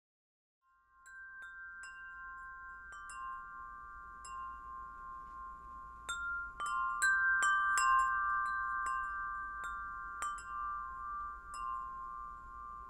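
Wind chimes ringing. Light strikes come at irregular moments over several long, overlapping held tones. It starts about a second in and is busiest around the middle.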